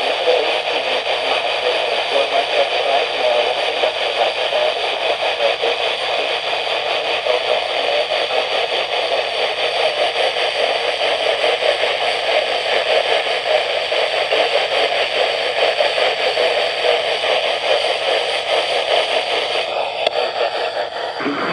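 AM radio broadcast of an EAS Child Abduction Emergency alert, the alert barely audible under steady, loud static hiss.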